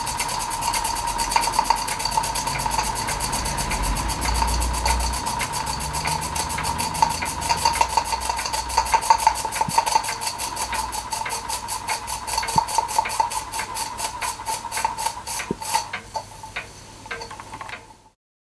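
Small model steam engine running, a fast, even chuff of exhaust beats over a steady hiss. It is running smoothly after a fresh oiling. The beats slow over the last couple of seconds before the sound cuts off.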